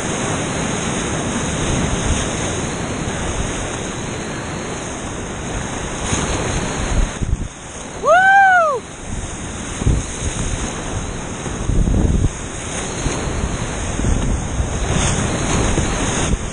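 Whitewater rapids rushing and crashing around a kayak, heard right at the water with wind and spray buffeting the microphone. About halfway through, a brief high whoop rises and then falls in pitch.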